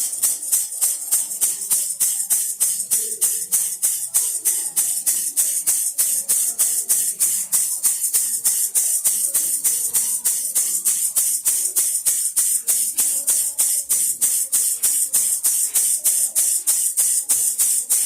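Baby rattle shaken steadily, a bright, hissy rattle of beads about four shakes a second.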